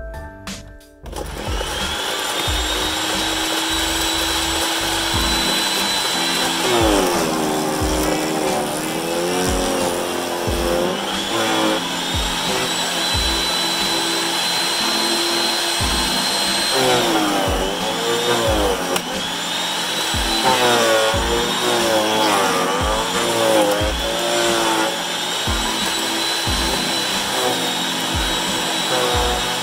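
Portland electric chipper shredder starting up about a second in and running with a steady high whine. Its pitch sags and wavers several times as branches are fed in and chewed. Background music with a steady beat plays underneath.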